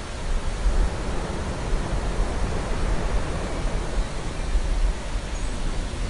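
Ocean ambience: a steady, even rushing of surf with a deep low rumble, no distinct waves or breaks standing out.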